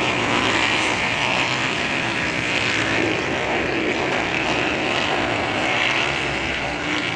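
Motocross dirt-bike engines running on the track, a steady blended drone that rises and falls a little as the bikes rev.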